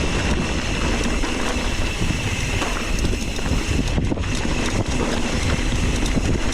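Wind rushing over the microphone, mixed with the rumble and rattle of a mountain bike riding down a rocky dirt trail, with a few sharp knocks along the way.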